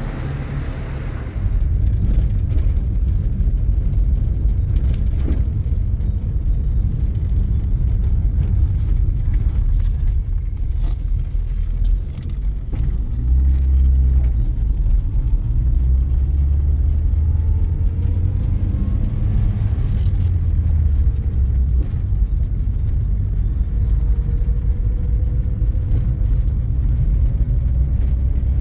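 A car being driven, heard from inside the cabin: a steady low engine and road rumble.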